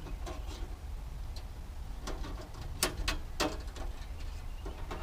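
A few sharp clicks and small metallic snaps from a wire spring and hook being fitted to an RV vent's bug screen, over a steady low rumble.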